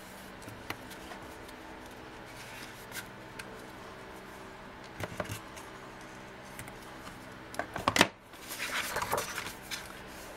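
Handling noise from a roll of Tear & Tape double-sided adhesive tape being laid along a cardstock edge, with scattered light taps and rustles. About eight seconds in a sharp snip of scissors cuts the tape, followed by about a second of paper rustling and rubbing as the tape and card are pressed down.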